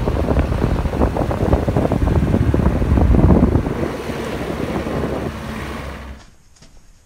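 Wind rushing and buffeting against the microphone at a moving car's open window, with a deep rumble underneath; it fades out about six seconds in.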